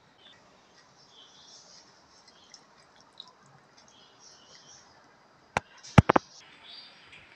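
A metal ladle clinks against a ceramic soup bowl: four sharp clinks close together near the end, the loudest just after the first. Faint high-pitched chirping comes and goes in the background.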